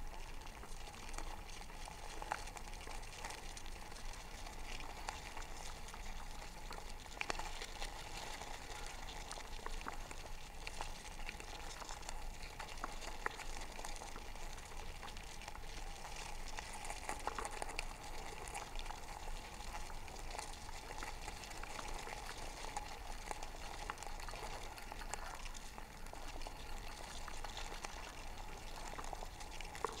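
Many yellowjacket wasps buzzing inside a plastic wasp trap, heard through a microphone clipped to the trap: a steady mid-pitched drone of wings with a dense crackle of small ticks.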